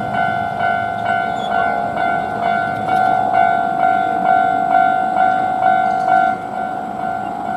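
Japanese railway level-crossing warning bell ringing its 'kan-kan' clang, about two strikes a second, stopping about six seconds in.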